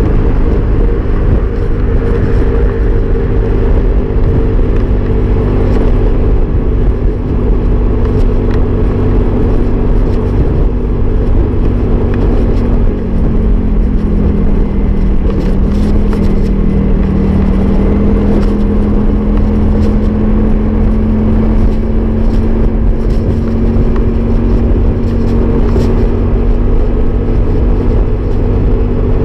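Motorbike engine running at a steady cruise, heard from the rider's seat with wind rumble on the mic. The engine note drops a little about fourteen seconds in, then holds steady.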